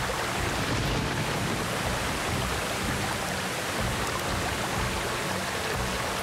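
Heavy rain falling steadily: a dense, even hiss with no breaks.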